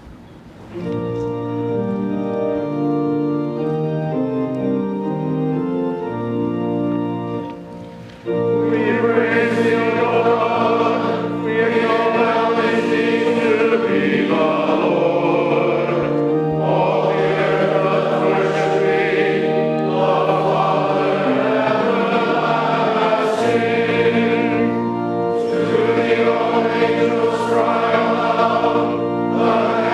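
An organ plays a short introduction of held chords, then about eight seconds in many voices join in, singing together with the organ.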